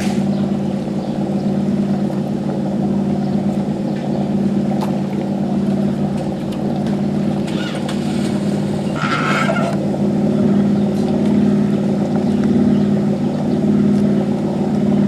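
Boat's Oldsmobile 455 Rocket V8 running steadily, with a deep, even engine note that holds its pitch.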